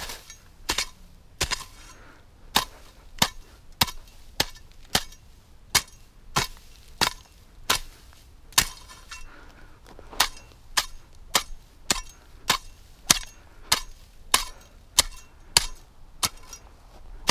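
Cold Steel machete chopping tufts of dry grass off at the roots, striking into hard dirt in a steady run of sharp blows, about three every two seconds.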